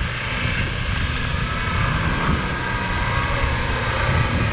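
Land Rover Defender engine running as it drives through deep floodwater, under a strong low rumble of wind buffeting the microphone.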